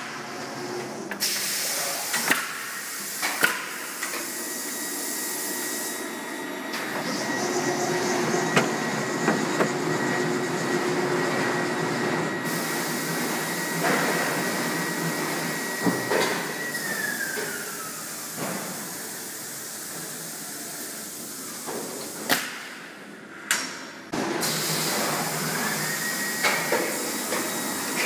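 EPM 1050 pallet nailing machine running. A steady whine glides down in pitch and fades about 17 seconds in, then rises back near the end, over hissing and a few sharp knocks.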